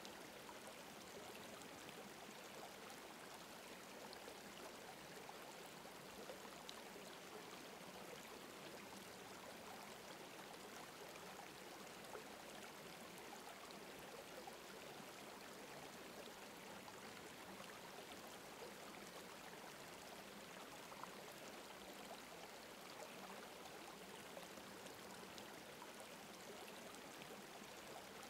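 Near silence: a faint, steady rushing like a running stream.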